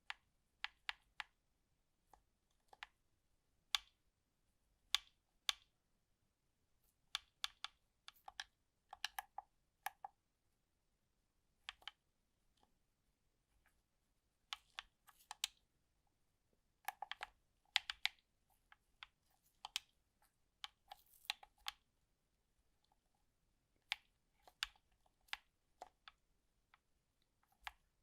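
Faint, irregular light clicks and taps of a smartphone and its packaging being handled, coming in uneven clusters.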